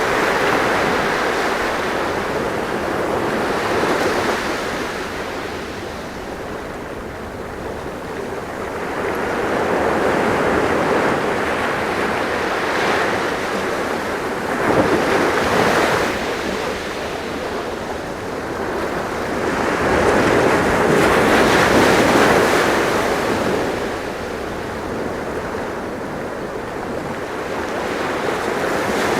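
Sea waves washing on a shore, a continuous surf that swells and falls back every few seconds, with some wind noise.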